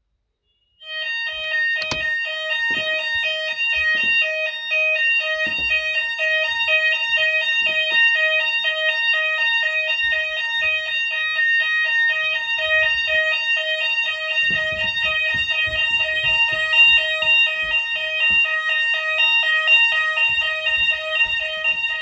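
Fire alarm sounders start suddenly about a second in and sound continuously with a rapidly alternating multi-tone alarm signal, triggered by a manual call point on an addressable fire alarm system.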